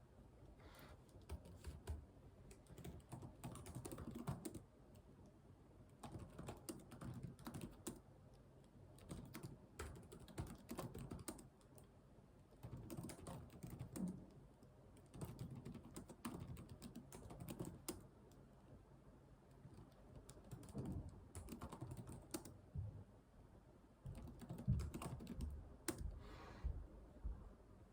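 Typing on a computer keyboard: runs of rapid key clicks lasting a second or two each, with short pauses between them.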